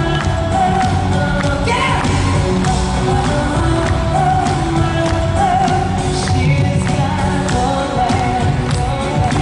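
Live pop concert music played loud in an arena, with a sung vocal line over a steady pulsing beat.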